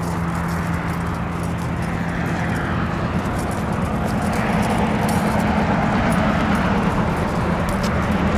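A motor vehicle running close by: a steady engine hum that shifts slightly higher in pitch and grows a little louder about four seconds in. Light clicks of footsteps on the pavement run over it.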